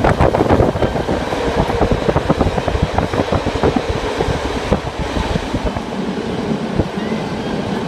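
A diesel railcar running along the track, heard from inside the carriage: a steady rumble with many irregular clacks and rattles from the wheels on the rails.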